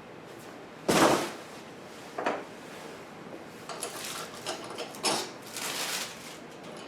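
Mower parts being handled during assembly: a loud clunk about a second in, a smaller knock a little after two seconds, a few light clicks, then another clunk followed by a short rustle.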